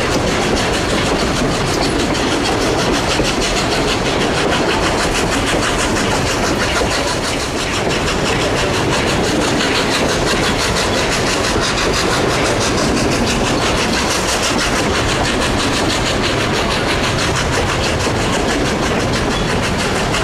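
Durango & Silverton narrow-gauge steam train running steadily: a continuous rattle of wheels and coaches on the track, with a fast, even beat.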